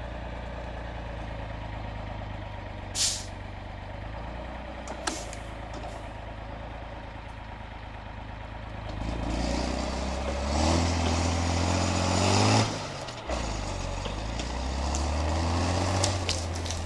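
Mercedes-Benz Unimog's diesel engine running steadily, with a short hiss about three seconds in. About nine seconds in it revs up and labours as the truck drags a load of logs through the snow; the revs drop briefly about thirteen seconds in, then climb again.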